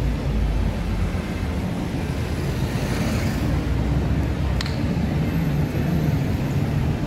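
City street ambience: a steady rumble of traffic, with a hiss that swells and fades about three seconds in and a single sharp click a little after.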